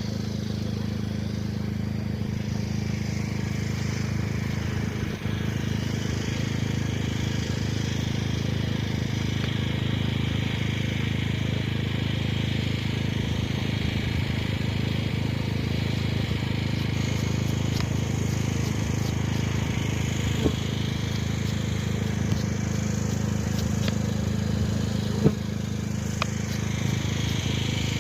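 Steady drone of many honeybees buzzing around an opened hive, with a few sharp knocks near the end.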